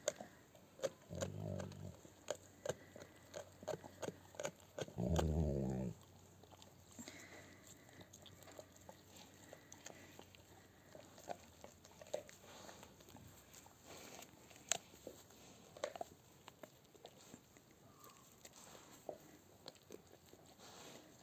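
Faint chewing and licking by a dog mouthing at grass: scattered soft clicks and mouth noises, with two short low groaning sounds in the first six seconds.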